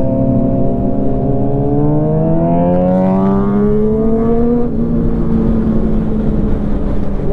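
Superbike engine under way, running steady and then rising in pitch as it accelerates from about two seconds in; the note drops suddenly a little before five seconds in and settles to a steady run.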